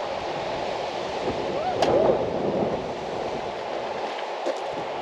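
Strong wind rushing and buffeting the microphone in a steady noisy roar.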